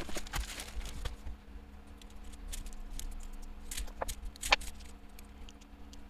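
Scattered light clicks and rattles of small keyboard parts being handled while foam and foil pads are fitted, over a faint steady hum.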